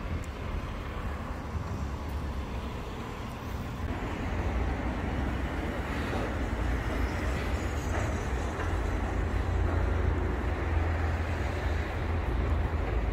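Steady low rumble of vehicle or traffic noise, growing louder about four seconds in.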